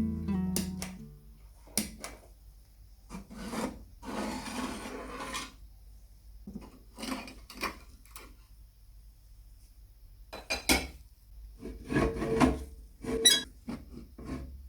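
Acoustic guitar music fading out in the first second, then scattered handling sounds of an old lamp being worked on: short scrapes and rubs and small parts clinking, with quiet gaps between.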